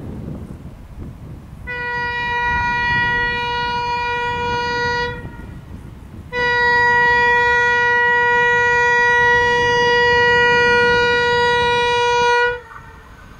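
GM 071 class diesel locomotive's horn sounding two long steady blasts for the level crossing, the first about three and a half seconds, then after a short gap a louder one of about six seconds. A low rumble runs underneath.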